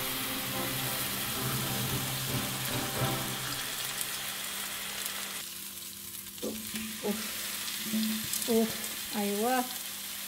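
A marinated seer fish steak sizzling in hot oil in a nonstick frying pan while it is turned with a spatula, a steady hiss throughout. A few short wavering pitched notes sound near the end.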